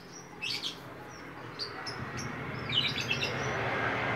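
Small caged finches chirping: short, high calls at scattered moments, a quick cluster near the middle-to-end. Beneath them a steady rushing background noise grows louder through the second half.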